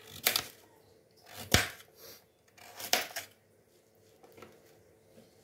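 Kitchen knife cutting through raw sweet potato and knocking on the cutting board: three chops at about a second-and-a-half intervals, the middle one the loudest.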